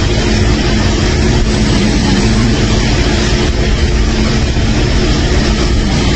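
Loud snoring: a rough, rattling rumble that runs on without a break.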